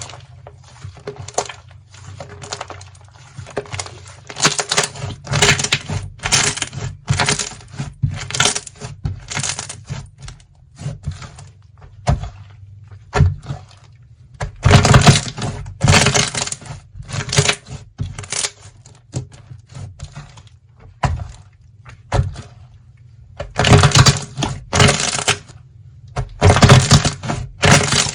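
Slime being handled, making dense clicking and crackling pops in repeated bursts about a second long, over a steady low hum.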